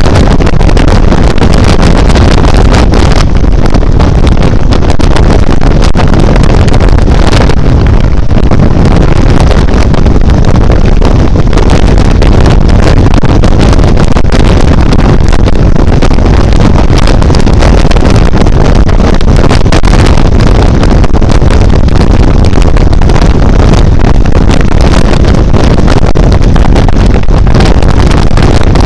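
Benelli TRK 502 motorcycle being ridden, its 500 cc parallel-twin engine running under heavy wind noise on the microphone. Loud and steady throughout.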